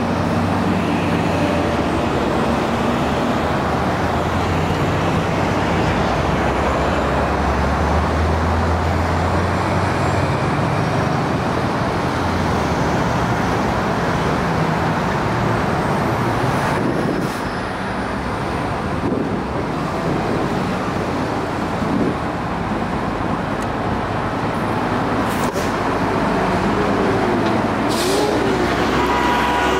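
Road traffic with a city bus engine running as it pulls away, its low hum strongest over the first twelve seconds or so, then steady traffic noise with a few short sharp clicks in the second half.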